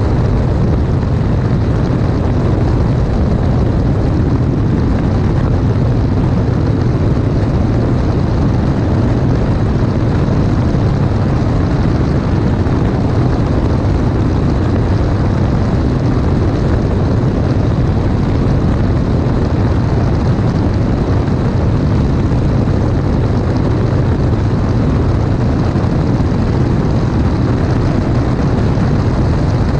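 Steady drone of a light aircraft's engine and propeller in flight, mixed with rushing wind on a camera mounted outside the aircraft under the wing.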